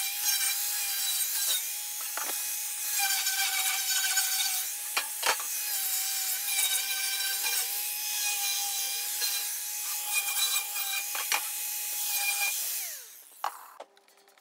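Angle grinder with an abrasive disc sanding paint off a steel welder cover, running with a high, steady whine over a grinding hiss. Near the end it is switched off and its pitch falls as it winds down.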